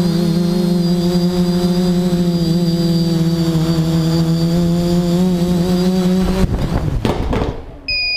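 TBS Discovery quadcopter's electric motors and propellers humming steadily, heard close up from its onboard camera, with a high whine above the hum. About six and a half seconds in the drone sets down on a corrugated roof with a short rough clatter and the motors stop, then a short electronic beep sounds near the end.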